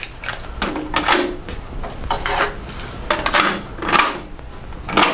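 Plastic cassette tapes being loaded into the two decks of a Sony TC-WR535 dual cassette deck and the cassette doors snapped shut: a series of plastic clicks and clacks.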